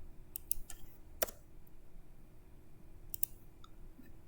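Scattered clicks of a computer mouse and keyboard during data entry: about seven short clicks, the loudest a little over a second in, with a faint steady hum beneath.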